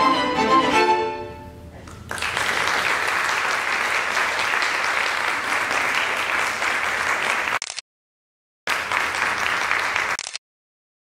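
A string quartet of two violins, viola and cello holds its final chord, which dies away within the first second and a half; then audience applause starts about two seconds in and carries on, breaking off abruptly twice.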